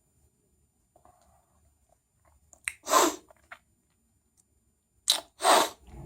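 A man sneezing twice: two loud, short bursts, each after a brief lead-in, about three seconds in and again just after five seconds.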